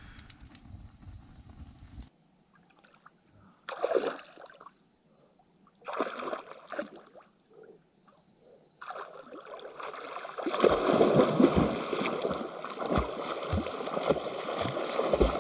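Lake water splashing as a person wades and washes in it: a couple of short splashes, then steady splashing and sloshing from about nine seconds in, louder a second later.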